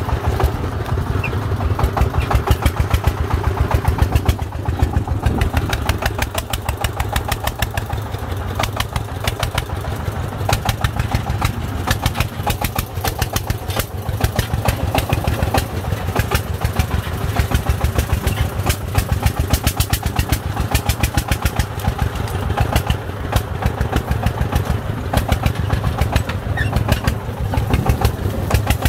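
Công nông farm truck's single-cylinder diesel engine running steadily under a load of broken bricks and soil, with a rapid, even firing beat.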